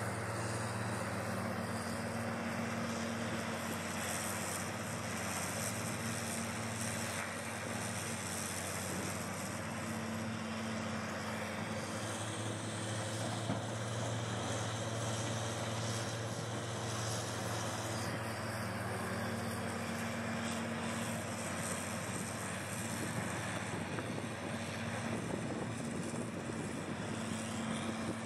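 Diesel engine of a large Komatsu hydraulic mining excavator running steadily as it digs and swings its bucket, a continuous low drone with a higher hum that comes and goes every few seconds.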